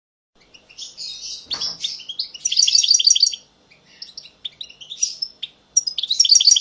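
Small birds chirping, with quick runs of rapid high notes in two spells and a short lull between them.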